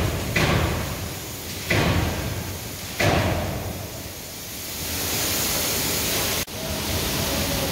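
Forging-roll machine working a red-hot steel bar: four heavy metallic clanks in the first three seconds as the roll segments grip the bar, then steady machine noise.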